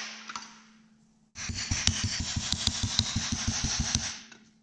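A hand-held power tool working on the engine: a run of rapid, even pulses, about seven a second, that starts a little over a second in and stops about three seconds later.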